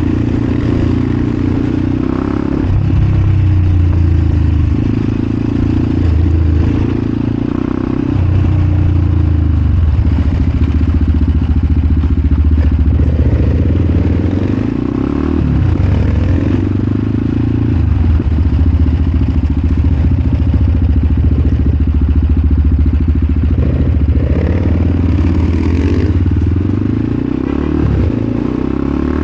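Supermoto motorcycle engine running under way, its note rising and falling several times as the throttle opens and closes.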